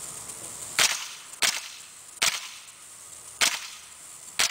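Five suppressed shots from a Smith & Wesson M&P15-22 semi-automatic .22 LR rifle fitted with a SilencerCo Sparrow suppressor and firing subsonic ammunition. Each shot is a short sharp pop, spaced unevenly about a second apart.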